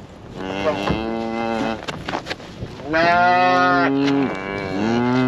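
Cattle bawling: three long calls, each bending up and then down in pitch, the middle one the loudest and the last still sounding at the end.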